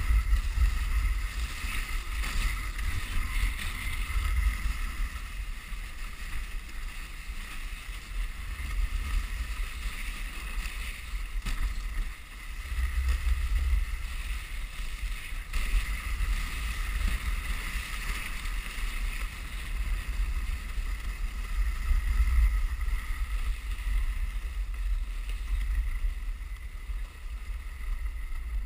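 Dog sled running over a packed snow trail: steady hiss and scrape of the runners on snow, with wind buffeting the microphone in a heavy, uneven rumble.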